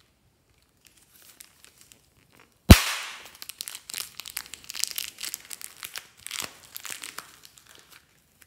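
Green slime being squeezed out of its clear plastic wrapper: a single sharp pop a little under three seconds in, then the plastic crinkling and crackling with soft slime squishes as the slime is worked out and kneaded.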